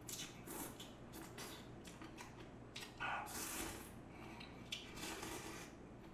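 Close-up eating sounds of a person slurping and chewing thin wheat noodles (janchi guksu): short, irregular wet bursts, louder for a moment about three seconds in.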